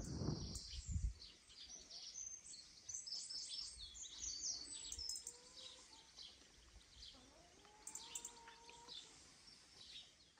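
Small songbirds chirping and twittering again and again, with a brief low wind rumble on the microphone in the first second. A faint drawn-out tone sounds twice in the second half.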